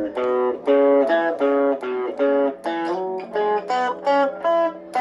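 Squier Cyclone electric guitar playing a run of short chords, about two a second, each cut off before the next.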